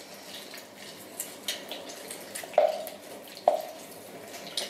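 An orange half being pressed and twisted on a plastic hand citrus juicer, with faint squishing and dripping of juice. Two sharp plastic knocks come about two and a half and three and a half seconds in.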